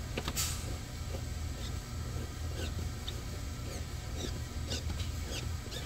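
Small squeaks and ticks from a metal filling pipe and its nut on a pouch packaging machine, wiggled side to side by hand to seat the fitting at the right angle. There is a sharper click about half a second in, over a steady low hum.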